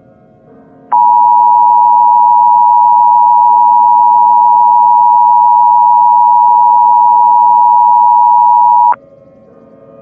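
Emergency Alert System attention signal: the two-tone 853 and 960 Hz alert tone. It comes in sharply about a second in, holds one steady loud tone for about eight seconds, and cuts off abruptly.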